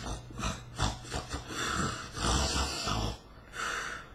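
A woman imitating someone snoring hard in their sleep: a few breathy snore sounds with short pauses between them.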